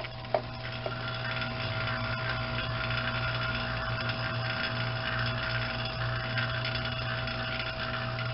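Pittsburgh 1.5 CFM rotary-vane vacuum pump running steadily with a low, quiet hum, pulling a CPVC water line down to about 30 inches of mercury. A couple of light clicks come in the first second.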